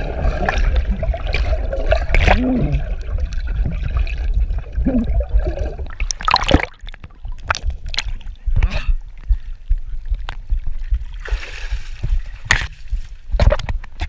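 River water heard underwater through a GoPro's waterproof housing: muffled rushing and gurgling with a low rumble. After about six seconds this gives way to splashes and several sharp knocks, one of them loud near the end.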